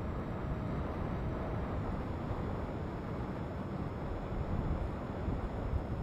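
Wind buffeting the microphone: a gusty low rumble that swells and eases, loudest near the end.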